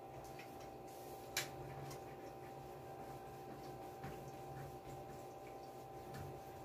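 Faint handling sounds of ironing: hands smoothing a polo shirt on an ironing board and a flat iron sliding over the fabric, with a few small clicks, the sharpest about a second and a half in, over a steady faint hum.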